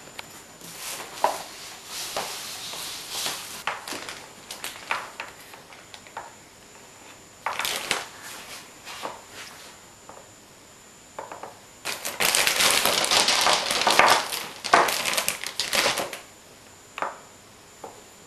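Pegs and glass marbles clicking and knocking on a wooden peg-solitaire board as they are lifted out of and set into its holes. The clicks are scattered at first, then run together into a few seconds of dense rattling clatter about two-thirds of the way through.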